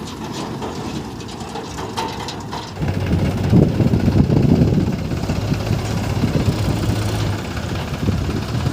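Heavy machinery's diesel engine running, getting louder and rougher about three seconds in as it is revved under load.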